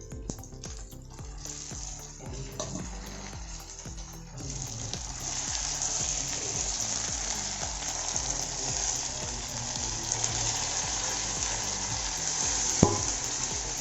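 Marinated chicken going into hot oil and spice masala in a pan and sizzling hard, the sizzle rising sharply about four seconds in and staying strong. A single sharp knock, as of the spatula against the pan, comes near the end.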